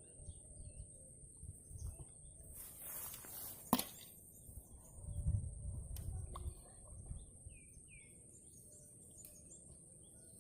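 Outdoor ambience with a steady high-pitched insect buzz, over low rumbling handling noise. There is a sharp click just under four seconds in and two short chirps about halfway through.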